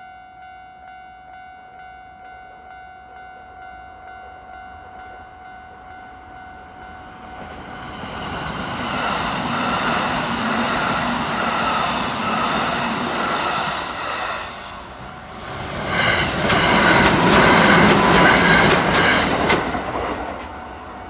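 Japanese level-crossing warning bell ringing at about two strokes a second. Then Kintetsu electric trains pass through the crossing one after the other, the second louder, with its wheels clacking over the rail joints.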